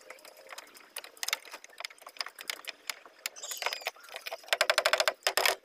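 Tools clicking and knocking on metal and wood as a small boat engine is fixed to its wooden mount, then, about four and a half seconds in, nearly a second of fast, even mechanical rattling.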